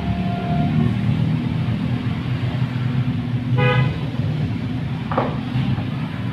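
Slow roadside traffic: cars and motorbikes drive past with a steady low engine rumble. About three and a half seconds in there is one short vehicle horn toot.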